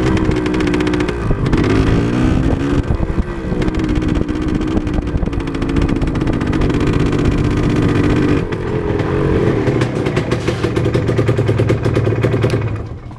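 Motorcycle engine running while riding, its revs rising and falling as the rider speeds up and eases off. The engine sound drops away sharply near the end.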